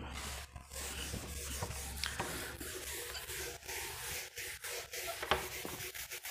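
Scratching and rubbing of handwriting, with scattered small ticks.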